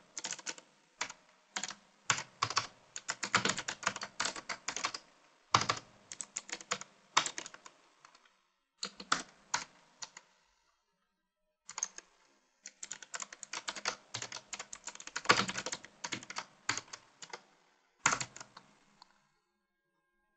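Typing on a computer keyboard: quick runs of key clicks with short pauses between them, stopping shortly before the end.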